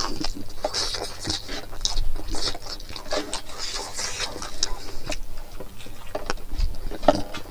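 A person chewing a mouthful of rice and greens close to the microphone, with a dense run of wet mouth clicks and smacks.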